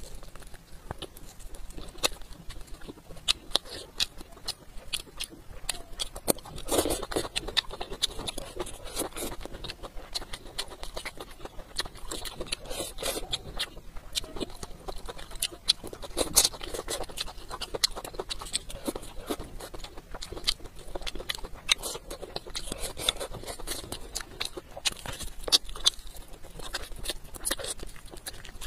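Close-miked chewing and lip-smacking of a person eating braised chicken, many quick irregular wet clicks and smacks.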